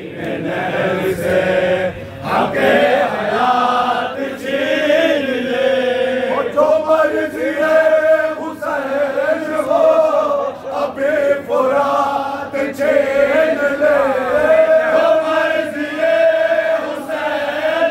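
A group of men chanting a noha, the Shia mourning lament, together: a lead voice with the crowd singing along in long, held lines.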